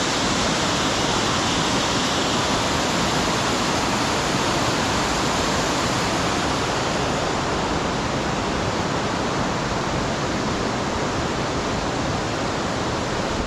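Waterfall in full spate: a steady, loud rush of water falling across the whole width of the falls and crashing onto the rocks below.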